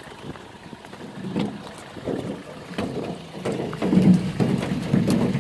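Water splashing and sloshing in irregular bursts as tilapia are scooped from a fish pond, louder from about three and a half seconds in.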